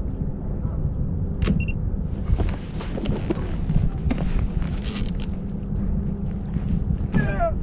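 Boat motor running steadily with a low rumble, with a few sharp clicks and knocks from gear being handled in the boat.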